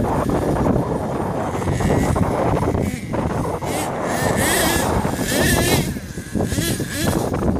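HPI Savage XL radio-controlled monster truck's small engine revving up and down in short bursts as it crawls over rocks, loudest about four and a half and five and a half seconds in.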